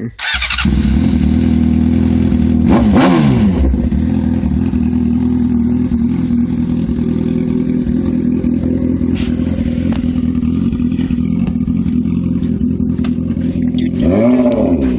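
2006 Honda CBR600RR inline-four engine starting up and running with no exhaust fitted, a loud open-header sound. It catches right away, is blipped once about three seconds in, idles, and is revved again near the end.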